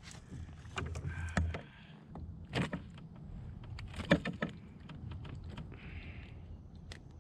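Knocks, clacks and rattles of gear being handled in a kayak while a just-caught bass is dealt with, several sharp knocks with the loudest about four seconds in, and short rustles between them.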